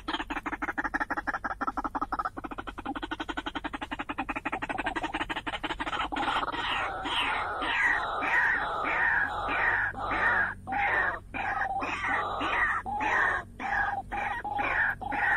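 White-breasted waterhen calling. It starts with a fast, even rattle of clicking notes, then about six seconds in breaks into a regular string of loud, falling calls, about two or three a second.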